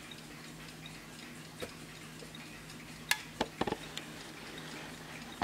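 Warmink mantel clock's pendulum movement ticking steadily, with a few sharper, louder clicks about three seconds in.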